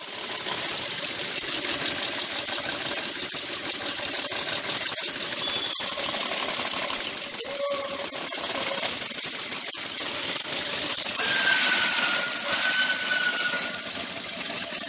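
Volkswagen Touareg engine running with a rapid mechanical ticking and clatter, the knock that comes and goes. It comes from a cylinder head, not the drive belt, and is suspicious enough that the valve covers need to come off to find the cause.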